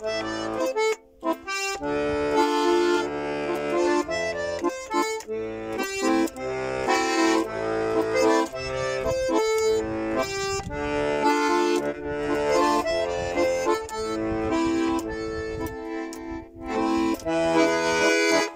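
Russian garmon (button accordion) playing an instrumental interlude alone: a melody over bass notes and chords, without singing. The playing breaks off briefly about a second in.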